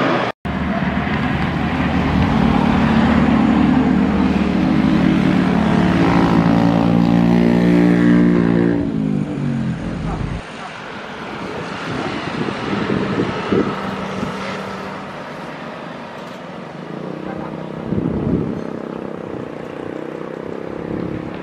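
Jet airliner engines, loud, with tones that slide downward as the aircraft passes. About ten seconds in, a cut brings quieter steady jet noise from a Boeing 737 landing and rolling along the runway, with a few brief thumps.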